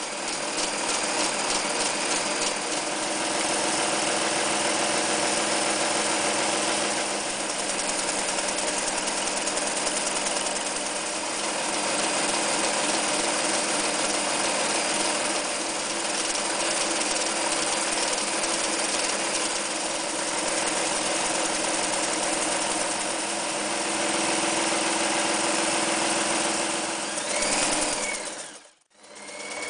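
Janome New Home 551 sewing machine running steadily as it stitches, with a fast even needle rhythm. It cuts out briefly near the end, then starts again.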